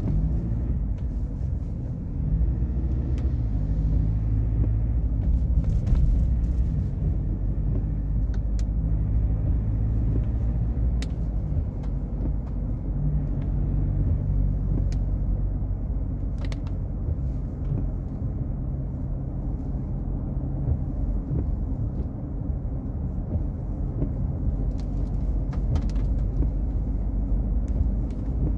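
Ford Ranger Wildtrak pickup under way: a steady low rumble of engine and road noise, its engine note shifting a little, with a few faint ticks.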